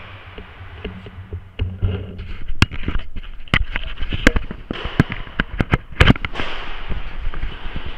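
Paintball markers firing: a run of irregular sharp pops that starts about a second and a half in and comes thicker after that.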